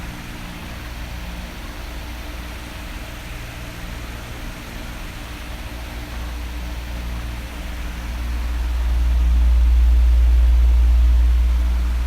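Oscillating electric fan running with a steady hiss of moving air over a faint motor hum. A deep rumble of air on the microphone fades at the start and swells again about two-thirds of the way through as the fan sweeps back across.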